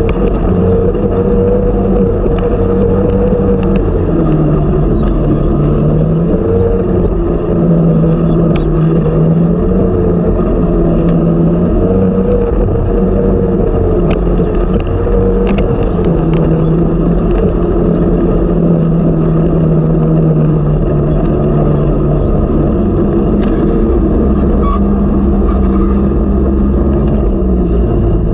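Snowmobile engine running steadily while riding along a trail, its pitch easing down and coming back up a few times with the throttle.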